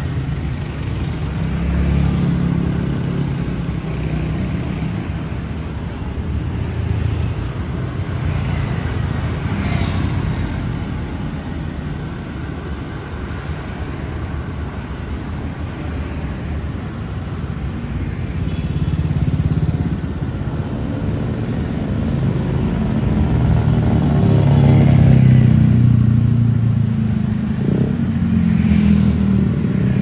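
Street traffic of motorbikes and cars driving past: continuous engine and tyre noise that swells and fades as each vehicle goes by, loudest about 25 seconds in.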